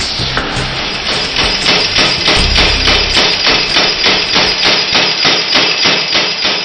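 Little Giant power hammer pounding hot round bar, a steady run of blows at about five a second that grows louder over the first second or two.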